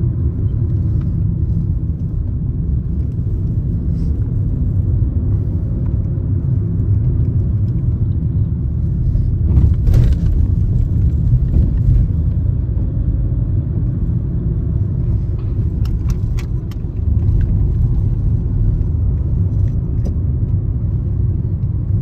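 Low, steady road and engine rumble heard from inside a car driving slowly through city streets. A brief louder noise comes about ten seconds in, and a few small clicks or rattles follow around sixteen seconds.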